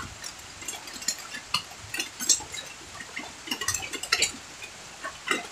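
Irregular short clicks, smacks and light clinks of people eating by hand from plates: lip smacks and chewing, with dishes knocking now and then.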